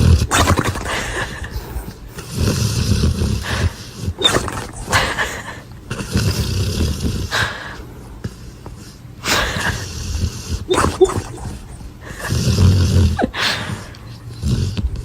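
Dog snoring, a rough, noisy snore swelling and fading in a slow regular rhythm, about one breath every two to two and a half seconds.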